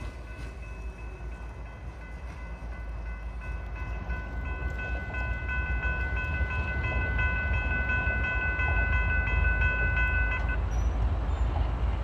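Train made up of a diesel locomotive and a track-measurement car rolling along the track, a low rumble that grows louder as it approaches. Over it runs a steady high-pitched tone that cuts off about ten and a half seconds in.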